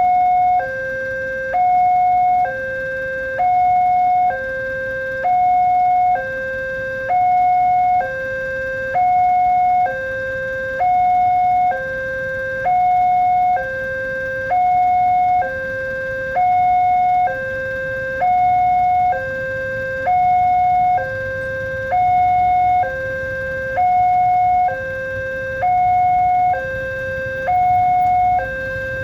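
Railway level crossing warning alarm sounding its two-tone signal: a higher and a lower tone alternate evenly, each held just under a second, the signal that a train is approaching and the barrier is closed.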